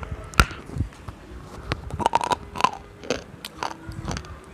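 Crisp crunching bites into a hard, brittle white item, followed by crunchy chewing. The sharpest bite comes about half a second in, and a quick run of crackling bites follows around two seconds in.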